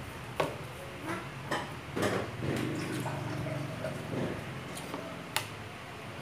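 Metal spoon clinking and scraping against a plate of rice in a handful of sharp clicks, two of them standing out, one just after the start and one about five seconds in.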